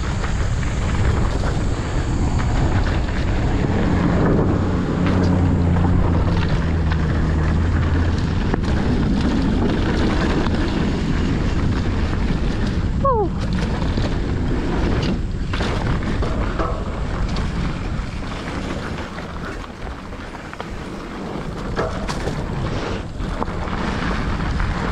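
Wind rushing over the microphone and tyres rolling over a dirt trail as a mountain bike rides downhill at speed. A brief falling whistle sounds about halfway through.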